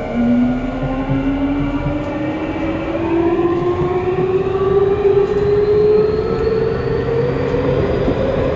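Y500-series electric train accelerating: the traction motors' inverter whine climbs steadily in pitch, several tones rising together, over the constant rumble of wheels on rail, heard from the gangway between cars.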